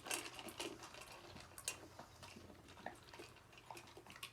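A pet eating dry kibble from a feeding bowl: scattered light clicks and taps of food and bowl, busiest in the first second, then sparser.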